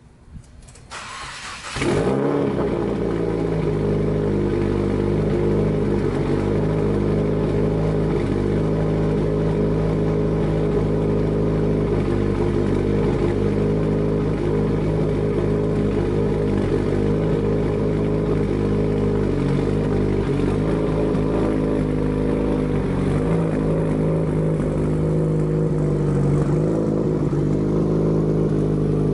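2016 Subaru WRX's turbocharged FA20DIT flat-four, breathing through Perrin headers, a Grimmspeed catted J-pipe and a Tomei titanium single-exit catback, cranks on the starter and catches about two seconds in. It then runs at a steady fast idle: a cold start after a week unused.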